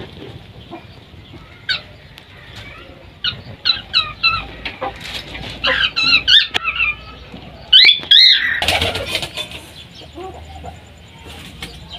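Chickens clucking and squawking in a run of short calls, loudest about eight seconds in.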